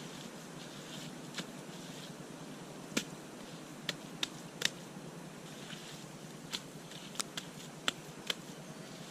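Irregular sharp clicks and snaps of hands-on building work with mud and sticks, about ten of them from a few seconds in, over a steady background hiss.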